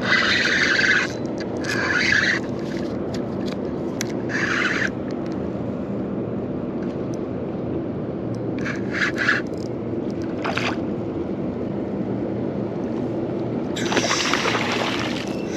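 Water splashing in short bursts over a steady low rumble. A longer bout of splashing near the end is a hooked fish thrashing at the surface.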